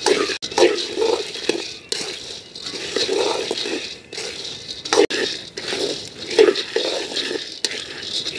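Raw peanuts being dry-roasted in a wok and stirred with a wooden spoon: the nuts slide and rattle against the pan in repeated sweeps, with an occasional sharp knock of the spoon.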